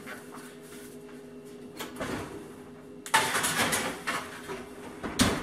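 A metal sheet pan being slid into a kitchen oven: a scraping clatter of pan and oven rack from about three seconds in, then a sharp knock near the end. A steady low hum runs underneath.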